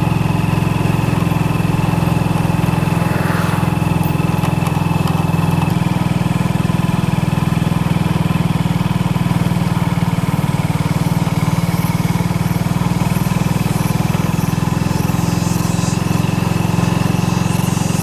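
Motorcycle engine running steadily under way, heard from on board, with a faint steady high whine above the engine note.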